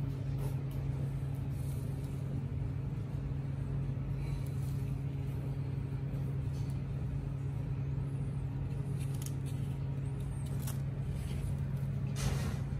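A steady low hum that does not swell or fade, with a few faint rustles and soft clicks. A short burst of rustling comes near the end.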